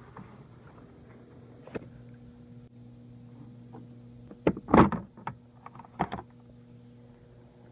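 Plastic retaining clips of a Honda CR-V rear cargo-area trim panel snapping loose as the panel is pried off with a plastic pry tool. A loud cluster of sharp snaps comes just past halfway, and a few more follow about a second later, over a steady low hum.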